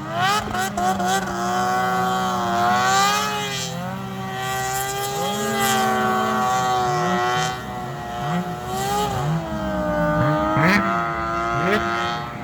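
Snowmobile engine revving hard during drifting and donuts: quick throttle blips at first, then held at high revs, with the pitch dipping and climbing back a few times.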